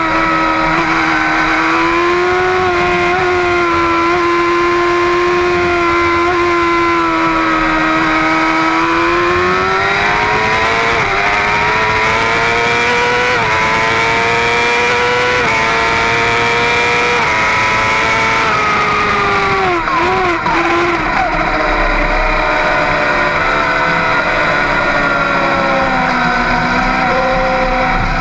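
Middleweight superbike engine at racing speed: it holds steady revs through a corner, then accelerates hard with three or four quick upshifts, each a rising pitch that drops suddenly. About two-thirds of the way through it falls off with blipped downshifts under braking, then runs steadily at lower revs through the next corner.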